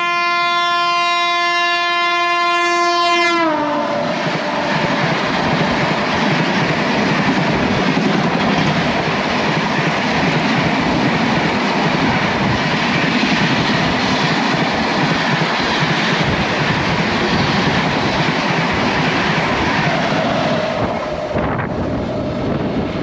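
A passing Rajdhani Express train on the next track: its locomotive horn sounds loudly for about three and a half seconds, dropping slightly in pitch as it goes by, then its coaches rush past close by in a steady noise of wheels and wind that fades about twenty-one seconds in.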